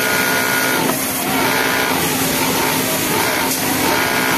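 Yamato flatlock industrial sewing machine running at speed while topstitching a T-shirt armhole: a steady mechanical stitching noise with a high motor whine.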